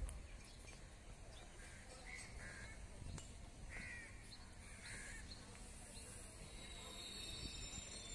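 Crows cawing several times, short separate calls, faint over a steady low rumble of wind and distant traffic. Thin high steady tones come in near the end.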